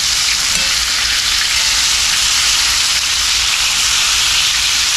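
Floured chicken pieces frying in a shallow layer of hot shortening in a cast iron skillet: a steady, even sizzle.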